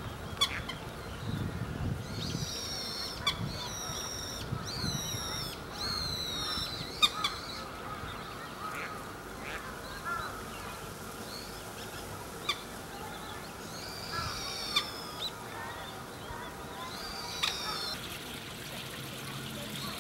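Birds calling: a quick run of high, falling notes for several seconds, then two shorter runs later, with scattered sharp clicks between.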